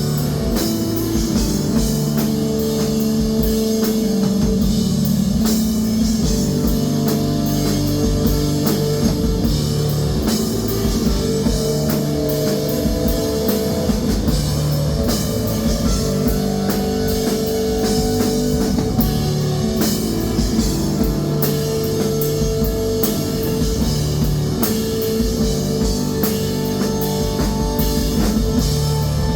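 Rock band playing, with guitar and a drum kit keeping a steady beat.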